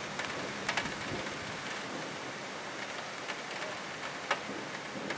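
Rain falling steadily as an even hiss, with scattered sharp taps of drops; the loudest tap comes about four seconds in.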